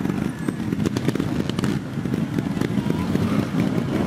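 Trials motorcycle engine running at low revs with a rapid, irregular popping exhaust as the rider works the bike over an obstacle.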